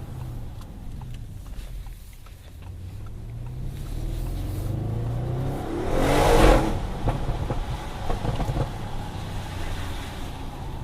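Audi RS6 C7 Performance's twin-turbo 4.0 V8 under way: the engine note falls off, then rises under acceleration from about two seconds in. About six seconds in there is a brief, loud rush of noise, and the engine then runs on with scattered light ticks.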